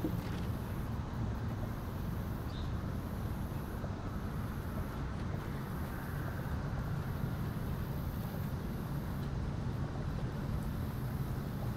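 Steady low engine rumble at an even level, with no clear start or stop.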